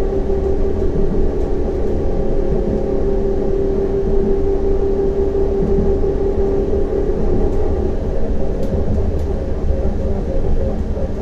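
CAF Urbos 100 low-floor tram running along the track at steady speed: a continuous low rumble with a steady whine that fades away about seven seconds in.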